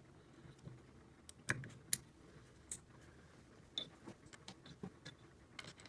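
Scattered light clicks and clinks of metal parts being handled: the oiled clutch plates of a Honda XR100R engine going into the clutch basket. The sharpest click comes about two seconds in.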